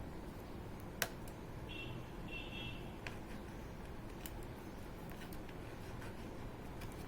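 Small sharp clicks and ticks of laptop parts and connectors being handled, one clear click about a second in and fainter ones later, over a steady low hum. Two brief high squeaks come around two seconds in.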